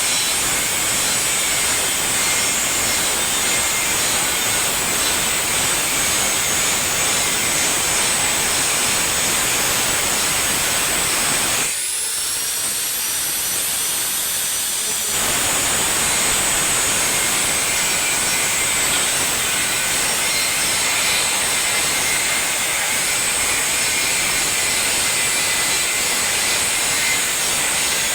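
Electric arc welding on hydrant and sprinkler pump piping: a steady, loud hissing frying noise. It breaks off for about three seconds near the middle, while a thin high whine rises and holds.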